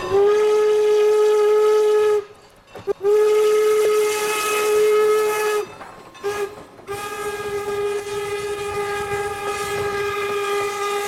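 Steam whistle of Strasburg Rail Road No. 475, a 4-8-0 steam locomotive, sounding the grade-crossing signal: two long blasts, one short, then a long one held. The whistle is a single steady tone.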